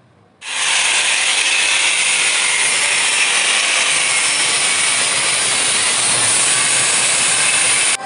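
Pressurised gas rushing out with a loud, steady hiss that starts suddenly about half a second in. A brief dip near the end breaks it.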